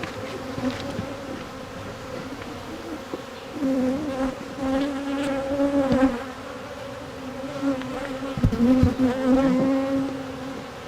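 Honeybees buzzing close by, several passing in turn with a buzz that wavers in pitch and comes and goes: a colony stirred up and defensive during an open-hive inspection. A few low bumps about three-quarters of the way in.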